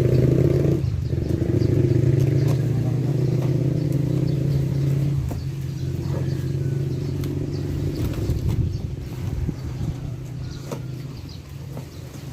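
A motor running with a steady low hum that dies away over the last few seconds, with a few light clicks.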